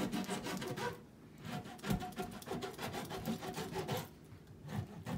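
A kitchen knife sawing back and forth through a whole porgy on a plastic cutting board, a run of quick rasping strokes that pauses about a second in and again near the end. The knife is a little dull.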